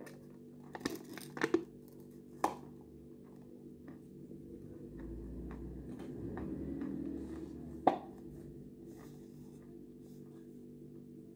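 Eating yogurt close to the microphone: a spoon clicks against a plastic yogurt tub, with mouth sounds. Four sharp clicks come in the first couple of seconds and one loud click about eight seconds in, over a faint low hum.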